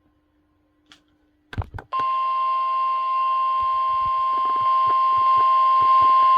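NOAA Weather Radio 1050 Hz warning alarm tone, a single steady beep starting about two seconds in after a couple of clicks. It is the weekly test of the alarm signal that switches on weather alert receivers.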